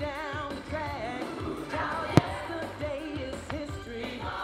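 Music with a singer, played for a firework display, with one sharp firework bang about two seconds in that is the loudest sound.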